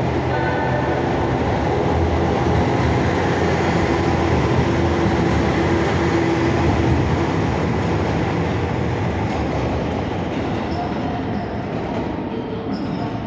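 JR Hokkaido H100 series diesel-electric railcar pulling out of the station, its engine running and wheels rolling on the rails, with a steady drone in the first few seconds. The sound fades gradually as the railcar draws away in the second half.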